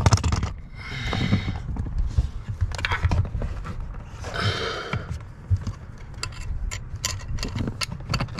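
Hand work on car interior hardware: scattered clicks, taps and knocks, with two short scraping rustles, one about a second in and one about four and a half seconds in.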